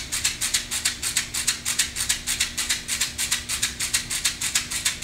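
A hand rattle shaken in a steady, even rhythm, about five shakes a second, with a faint steady hum underneath.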